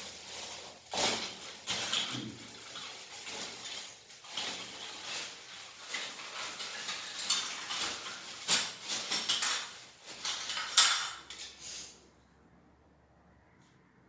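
Toilet cistern flush-mechanism parts clicking, knocking and rattling as they are handled and fitted, stopping about two seconds before the end.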